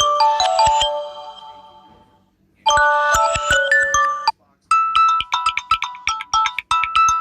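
Samsung Galaxy A21s ringtones playing in turn: a bell-like, mallet-style melody ends and rings away, a second tune starts and cuts off suddenly after about a second and a half, and a third, quicker tune of rapid repeated high notes begins.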